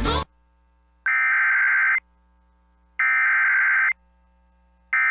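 NOAA Weather Radio SAME alert header: three bursts of buzzing digital data tones, each about a second long with about a second of silence between, the third starting near the end. The header carries the coded alert ahead of a new severe thunderstorm warning.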